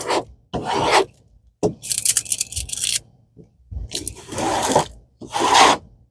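Rubbing and scraping as a diamond painting kit is handled, in four short bursts, with a run of crackly clicks in the second.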